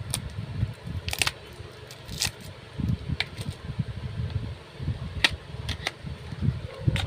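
A parcel's packaging being handled and opened: scattered sharp crinkles and clicks over a low, uneven rumble on the microphone.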